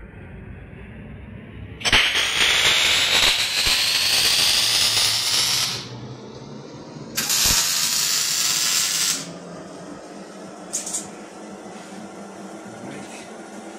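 Two long bursts of steady hissing, the first about four seconds and the second about two seconds, with two brief faint hisses a little later.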